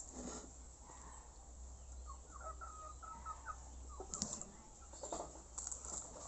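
Crunching bites and chewing of a firm green fruit, a few short crunches in the second half. About two seconds in, a bird gives a quick run of short calls.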